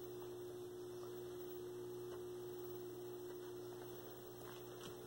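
Steady electrical mains hum from a running 1966 Admiral vacuum-tube black-and-white television.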